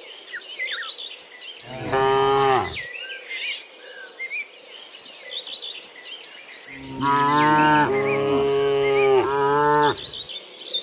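Cattle mooing: one moo about two seconds in, then three moos back to back near the end, with many short high chirps in the background.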